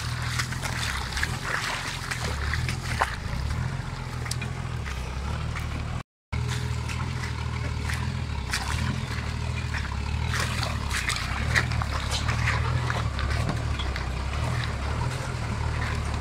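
Nissan Patrol 4x4 engine running with a steady low drone as the truck crawls over river stones and through shallow water. The tyres crunch and knock on the rocks and splash the water. The sound cuts out briefly about six seconds in.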